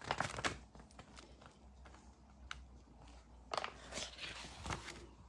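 Large printed paper pages being turned and handled, the paper rustling and crackling in two bursts: one right at the start and another from about three and a half seconds in.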